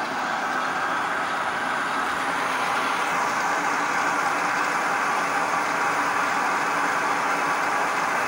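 Manual centre lathe running while a facing tool cuts across the end of a metal bar spinning in the chuck, making a steady, even machine noise.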